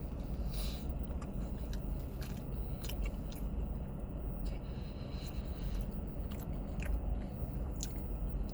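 A person biting into and chewing a soft turkey-and-stuffing sandwich, with wet mouth clicks and smacks scattered through, over a steady low hum.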